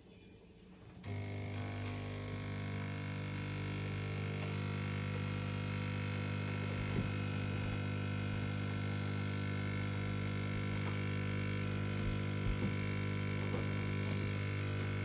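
Siemens EQ500 bean-to-cup coffee machine running with a steady hum while it makes a drink; the hum stops briefly at the start and resumes about a second in, with a few faint clicks later on.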